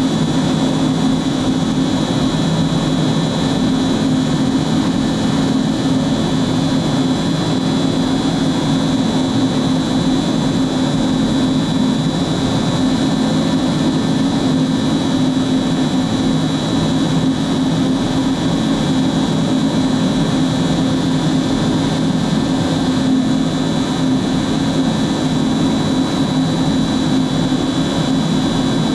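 MultiCam 5000 Series CNC router running, with its spindle and dust extraction going as the head travels over the table. It makes a steady high whine over a constant low hum.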